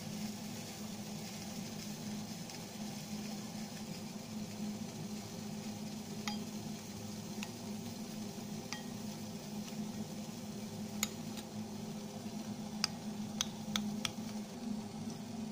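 Metal spoon stirring a paste in a ceramic bowl, clinking against the bowl a handful of times, mostly in the second half, over a steady low hum.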